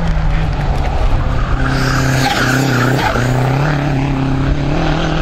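Small hatchback race car driven hard through a slalom course. The engine note rises and falls with the throttle and breaks off briefly twice around the middle, and the tyres squeal for about a second and a half in the middle.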